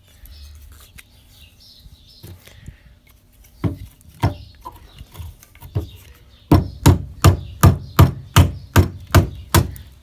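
Wood-on-wood knocks driving a wooden wedge into a split branch. A few scattered knocks come first, then past the middle a fast, even run of about ten strikes, close to three a second.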